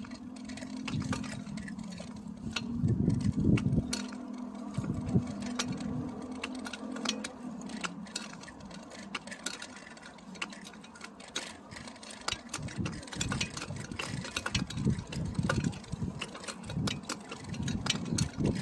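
Bicycle being ridden over a brick-paved path, its parts rattling in frequent sharp clicks over the joints. A steady low hum runs for the first several seconds, and irregular low rumbles come in the second half.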